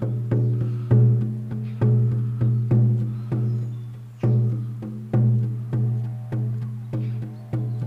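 14-inch deerskin shamanic frame drum on a beechwood frame, struck with a soft beater in a steady beat of about two strikes a second. Each strike gives a deep, ringing tone with overtones that carries on until the next, with a slightly longer gap a little past the middle.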